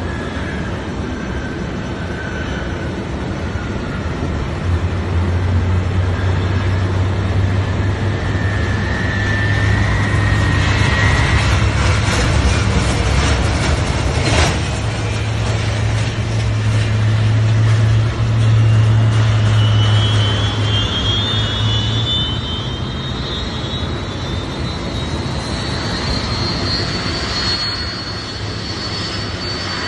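Boeing 747 jet engines running on the ground: a whine that glides slowly upward twice, over a loud deep drone that is strongest through the middle, while a tug tows the airliner. A single sharp click about halfway through.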